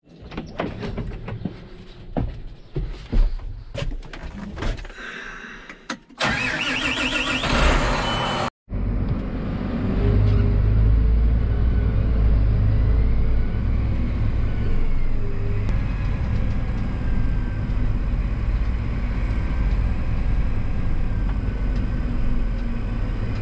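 Cab door latch and clunks as someone climbs into a John Deere tractor cab, then a loud rush of noise for about two seconds. After a brief dropout, the tractor's diesel engine runs steadily, heard from inside the cab as it drives.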